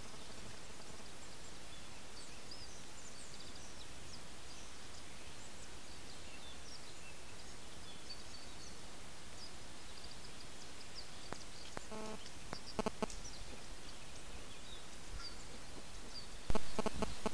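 Wild boar piglets rooting at a mud wallow: a few short grunts about twelve seconds in, then a sudden louder burst of rapid clicks near the end. Behind them is the trail camera's steady hiss, with small birds chirping high and faint throughout.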